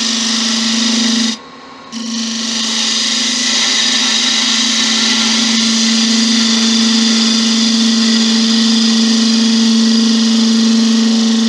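Laguna wood lathe running with a steady hum while a turning tool cuts the spinning spalted beech vase, giving a continuous hissing cut. The sound briefly cuts out about a second and a half in, then carries on.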